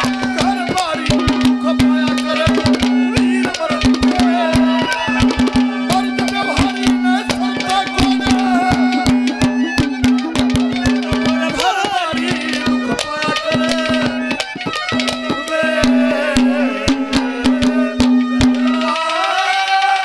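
Ragni accompaniment band playing an instrumental interlude: rapid hand-drum strokes over a steady held drone note and a wavering melody line. The drone drops out near the end while the drumming and melody go on.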